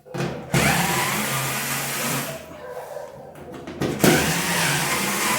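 Cordless power screwdriver running in two spells, backing out screws; the second spell starts about four seconds in.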